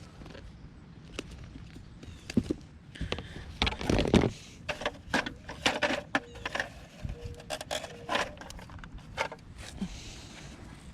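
A run of knocks and clatters, thickest from about two to nine seconds in.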